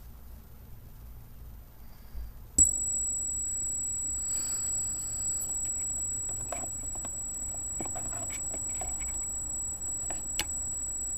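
High-pitched steady whine from an Arris CM2000 brushless gimbal's motors, starting suddenly with a click about two and a half seconds in and holding at one pitch, with scattered light handling clicks.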